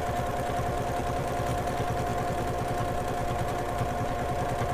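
Domestic sewing machine stitching at a steady fast speed while free-motion quilting: a rapid, even needle clatter over a steady motor whine.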